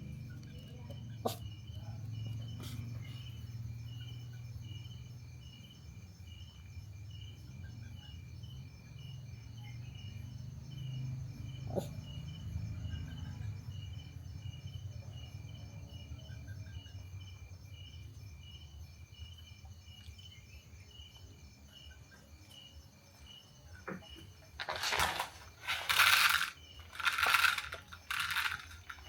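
Insects chirping in a steady pulsing pattern over a low rumble. Near the end, a run of five or so loud, sharp barks about a second apart, from puppies.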